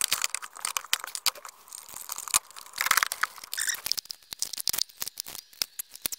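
Car engine computer (ECU) and its wiring-harness plugs being handled and pushed into place: irregular clicks, scrapes and rustling of plastic connectors and wires.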